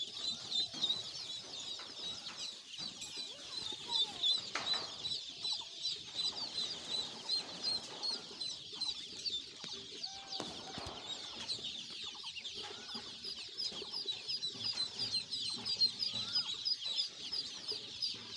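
A crowded brood of ducklings peeping nonstop, many short high peeps overlapping into a steady chorus.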